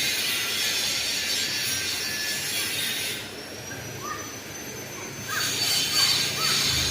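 Panasonic F-560Z2 industrial ceiling fan running, a steady rushing whoosh of air that dips for about two seconds midway before coming back, with a few faint short chirps during the dip.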